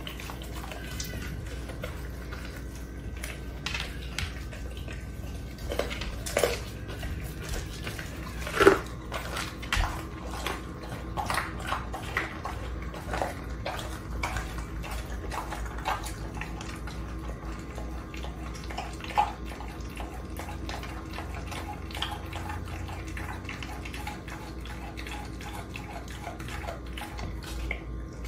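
A dog chewing raw chicken: wet smacking and licking with sharp crunches scattered throughout, the loudest about nine seconds in and another a little before twenty seconds.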